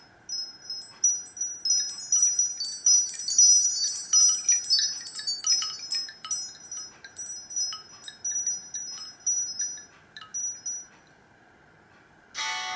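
Nokia C3-01 ringtone made of high, tinkling wind-chime tones, growing into a dense shimmer and thinning out until it stops about eleven seconds in. The next ringtone starts right at the end.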